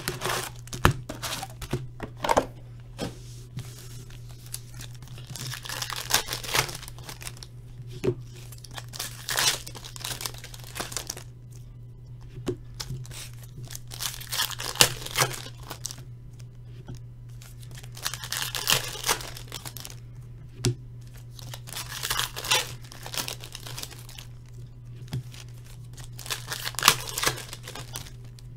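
Wrapping on a box of hockey trading-card packs being torn open and crinkled in repeated spells of rustling, with scattered sharp clicks, over a steady low hum.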